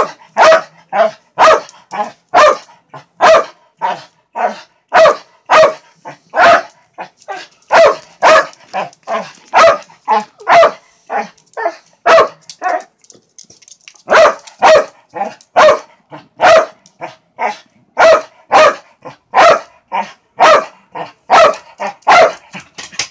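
A corgi barking over and over, roughly one to two barks a second, with one short pause about halfway through. The barking is aimed at balloons overhead, which set the dog off.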